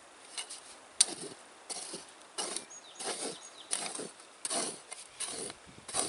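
Military trenching shovel chopping into dry sandy soil: about eight strikes, roughly three every two seconds, each a sharp hit followed by a short scrape of dirt. The first, about a second in, is the loudest.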